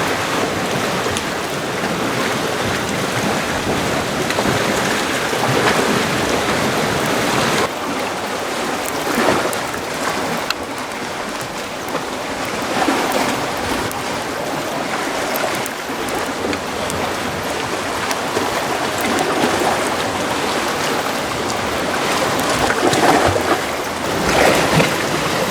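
Water washing and rushing at the shore, a steady noise that changes character about eight seconds in.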